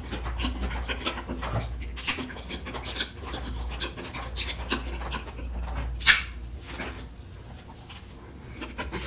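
Close-miked eating: chewing with wet mouth clicks and smacks, a few sharper ones about 2, 4½ and 6 seconds in.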